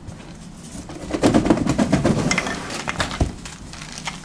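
Rummaging in a cardboard box of metal roof-rack clamps and bolts: rustling packaging and light clinks of metal parts, busiest for a couple of seconds from about a second in, ending with one sharp knock.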